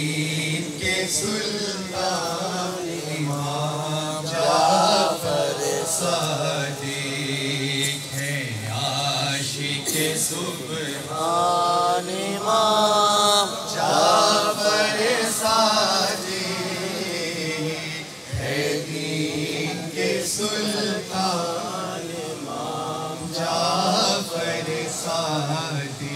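A man's voice chanting a devotional Urdu qasida (manqabat) through a microphone, in long, drawn-out, ornamented phrases.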